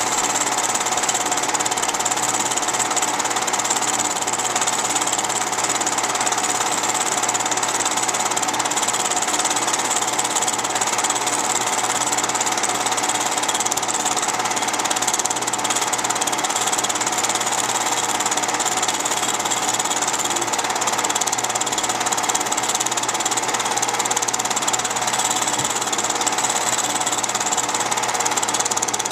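Film projector running, a steady mechanical clatter with a motor hum that does not change.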